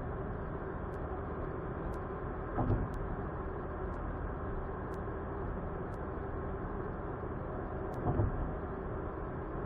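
Steady road and engine noise of a car driving, with two brief low thumps about three and eight seconds in.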